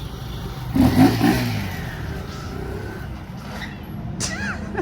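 A motor vehicle's engine revs up and pulls away, loudest about a second in and then fading, over a steady low engine hum.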